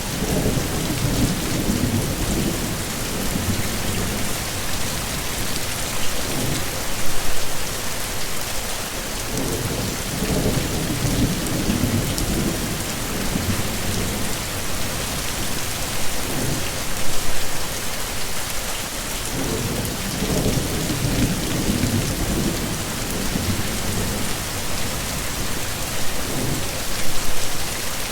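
Heavy, steady rain hissing, with three long low rolls of thunder about ten seconds apart.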